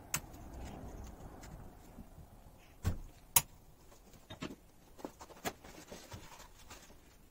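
Scattered sharp clicks and knocks of metal parts and hand tools handled on a workbench during reassembly of a driveshaft's tripod joint. The sharpest knock comes about three and a half seconds in.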